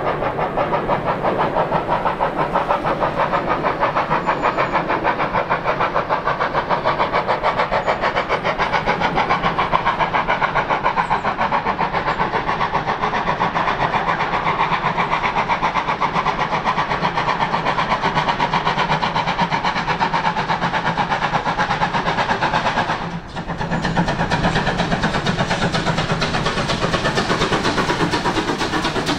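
Steam exhaust of a GWR 57xx 0-6-0 pannier tank locomotive working a goods train, beating in a fast, even rhythm. The sound dips briefly near the end.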